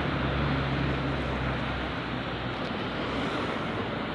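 Street traffic: a passing vehicle's engine hum fading away over the first two seconds, over a steady wash of city street noise.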